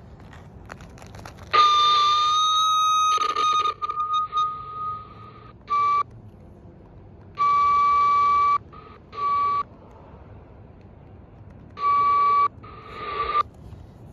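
A steady high whistling tone from a radio scanner's speaker as it picks up a keyed CB transceiver on 27.675 MHz. The tone comes and goes in about six abrupt bursts, the longest one about two seconds in.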